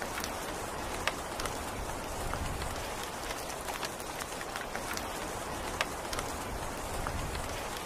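Steady rain falling, an even hiss with scattered sharper drop hits. The two loudest hits come about a second in and just before six seconds.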